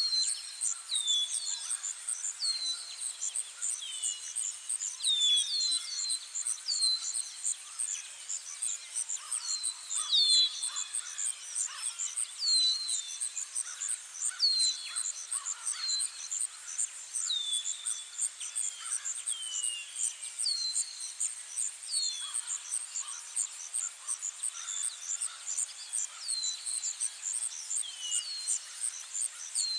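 Nature ambience: a steady, high, pulsing insect chorus like crickets, with birds repeating short falling chirps about once a second throughout.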